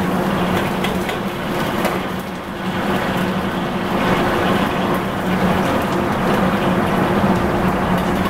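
Steady roar and hum of a commercial gas wok range and kitchen ventilation, with light scrapes and clinks of a steel ladle in the oiled wok.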